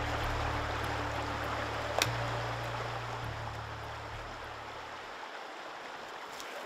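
Steady rush of a flowing stream, with a low music drone underneath that fades out about five seconds in. One sharp click about two seconds in.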